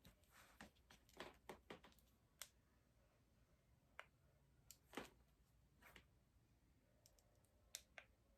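Faint, irregular clicks and light taps of small objects being handled, about a dozen scattered through otherwise near silence, typical of packaging and parts being handled during an unboxing.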